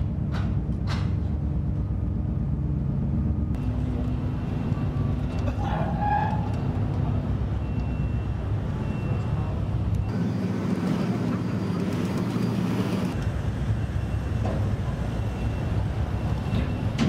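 Steady low rumble of a vehicle or engine, with a few faint steady tones over it, changing abruptly a few times.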